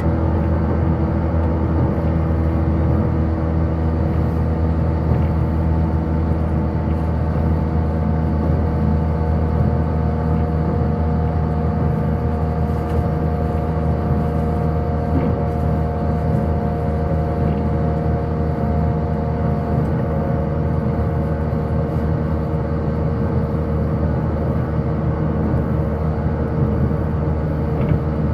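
JR 185-series electric train running steadily at speed, heard from inside the car: a constant rumble of wheels on rail with a steady motor and gear hum.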